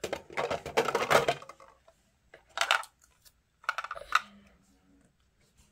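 Small hard plastic toy parts being handled: a clattering rustle for the first second and a half, then two shorter clicks and rattles a few seconds in.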